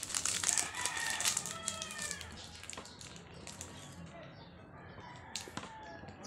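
Plastic snack wrapper crinkling as a Choco Mucho chocolate bar is opened, with a rooster crowing in the background during the first couple of seconds. Later it goes quieter, with one sharp crunch of a bite into the crunchy bar about five and a half seconds in.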